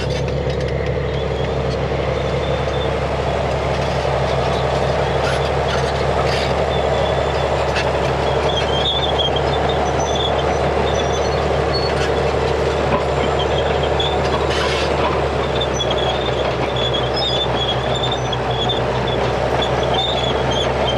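Tracked tank moving with its engine running in a steady low rumble while the metal tracks squeak in short high squeals. The squeals come more often from about halfway in.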